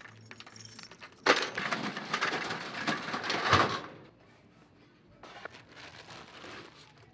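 Bowling pins clattering as a ball hits them, a loud crash lasting a couple of seconds, followed a few seconds later by a quieter pin clatter from another lane.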